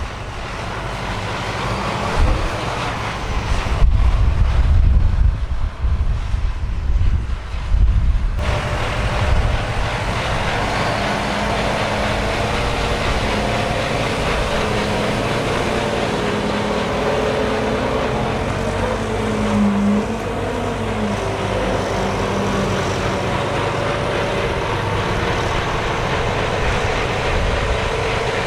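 Large diesel farm machinery running at the maize harvest. A heavy low rumble fills the first eight seconds, then gives way to a steady engine drone with a held hum.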